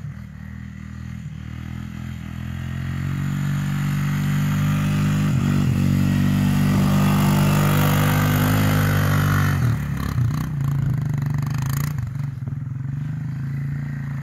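Lifted ATV's engine under hard throttle as the quad spins donuts in snow, growing louder as it comes close, with a hiss of tires throwing snow at its peak. About ten seconds in the engine eases off and runs on more quietly as the ATV moves away.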